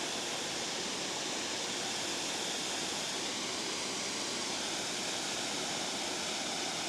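Steady rushing of water pouring through a spillway, an even, unbroken hiss.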